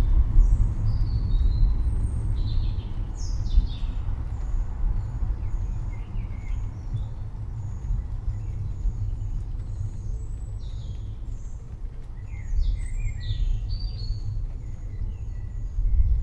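Deep, steady rumble of distant thunder that swells again near the end, with birds chirping and calling over it throughout.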